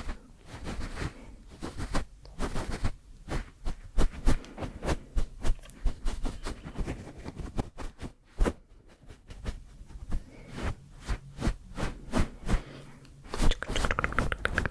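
Close-miked ASMR mouth and hand sounds: irregular soft clicks and taps with rustling, several a second, with a brief lull a little past halfway.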